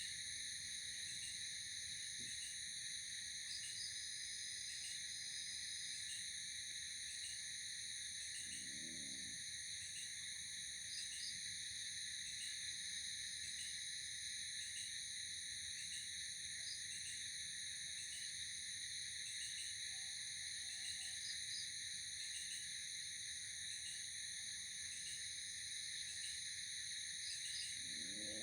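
Night insect chorus, crickets trilling steadily in several high overlapping tones, with a faint regular chirp about once a second. A short low call from another animal sounds twice, about nine seconds in and again at the end.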